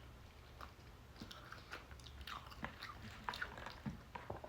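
Close-up mouth sounds of a person chewing a boiled potato: faint, scattered wet smacks and clicks.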